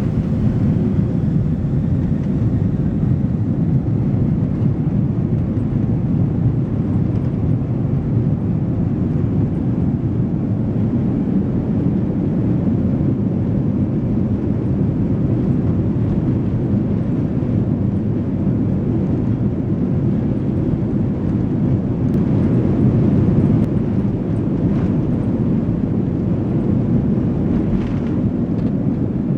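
Steady engine and air noise of a Boeing 767-300ER, heard inside the passenger cabin, strongest in the low range with a faint steady hum on top.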